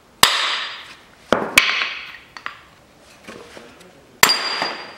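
Hammer blows on a hardened 22 mm socket set inside a VAZ-2110 front wheel hub, knocking the hub out of the steering knuckle so that the bearing's inner race comes out with it. There are four sharp metal-on-metal strikes, each ringing briefly, and the second and third come in quick succession.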